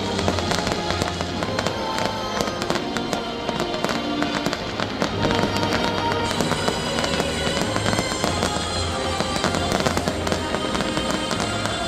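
Fireworks going off in a dense run of sharp, irregular crackling pops, with music playing underneath.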